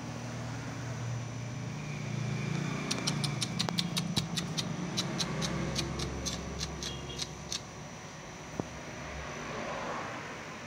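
A run of quick, high-pitched chirps or squeaks from a small animal, about twenty in a few seconds through the middle, over a steady low hum.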